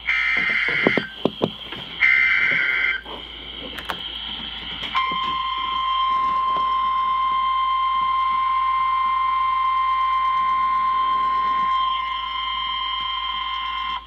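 Emergency Alert System activation on NOAA Weather Radio, heard over a hissy radio signal: two screechy digital SAME header bursts about a second long and a second apart, with some clicks between, then, about five seconds in, the steady 1050 Hz weather-radio warning tone that sounds before a Special Marine Warning.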